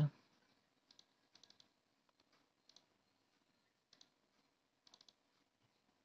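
Faint clicking at a computer: short single and quick double clicks scattered a second or so apart.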